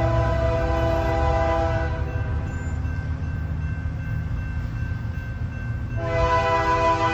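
Diesel freight locomotive's air horn sounding a chord for a grade crossing: one blast ends about two seconds in and another starts about six seconds in. Under it runs the steady low rumble of the approaching locomotives' diesel engines.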